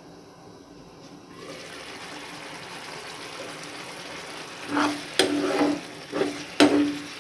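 Tomato-onion mushroom gravy bubbling at a simmer in a frying pan. About two-thirds of the way in, a spoon starts stirring and scraping through it against the pan, with a couple of sharp knocks of the spoon on the pan.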